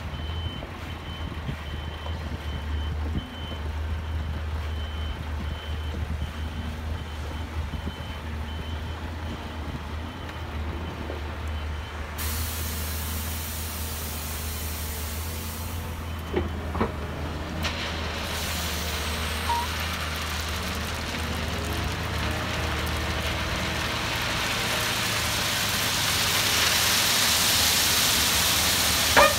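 Scania three-axle hooklift truck's diesel engine running as it reverses, its reversing alarm beeping for about the first twelve seconds. A hiss of air starts abruptly about twelve seconds in, and as the container tips, gravel sliding out makes a rising rushing noise toward the end.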